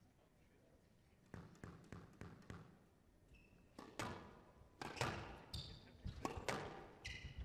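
Squash being played on a glass court. A few light ball knocks come about three a second, then from about four seconds in a rally starts, with sharp racket strikes and the ball hitting the walls. Short high squeaks of shoes on the court floor come between the strikes.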